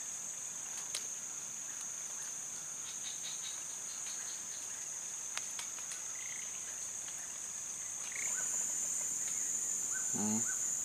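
Steady high-pitched drone of swamp-forest insects, growing louder and fuller about eight seconds in.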